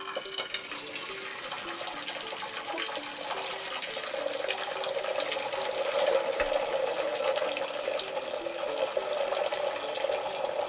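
Hot cooking water poured from one aluminium saucepan into another, a steady splashing pour that starts abruptly and keeps up throughout: the boiled akeyo leaves are being drained of their water before pounding into a paste.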